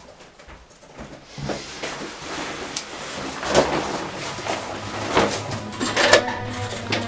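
Rustling of a heavy hooded coat being pulled on, with several sharp clicks and knocks; near the end the front door's handle and lock are worked.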